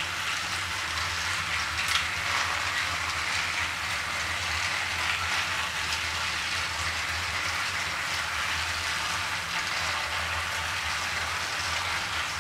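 Several battery-powered Trackmaster toy engines running together on plastic track: a steady whirring rattle of small motors, gears and wheels, with one sharp click about two seconds in.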